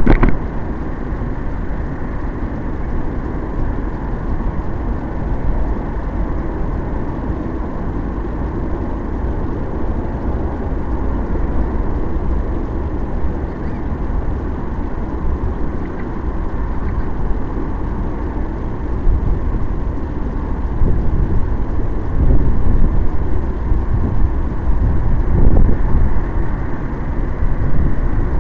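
Wind buffeting the microphone of a drone's onboard camera as it lies still on the ground, a steady low rumble that swells in gusts in the second half.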